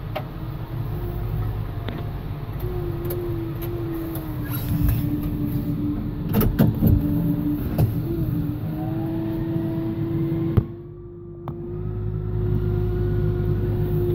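John Deere 6715 tractor engine running steadily, heard from inside the cab, with a steady whine over the low rumble and a few sharp knocks and rattles about six to eight seconds in. After a click about eleven seconds in the sound drops away briefly, then the engine comes back louder.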